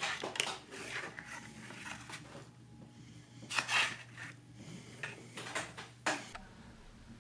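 A sheet of stiff white paper being handled and flexed on a cutting mat: rustling and crinkling in several bursts, with a sharp tap a little after six seconds in.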